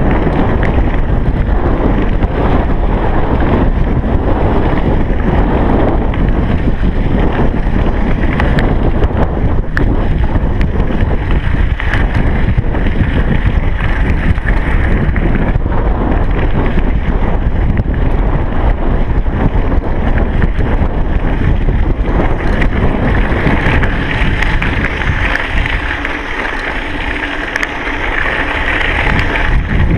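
Wind buffeting a chest-mounted GoPro camera's microphone while cycling, a loud continuous rumble. Near the end the low rumble eases and a steadier, higher hiss comes forward.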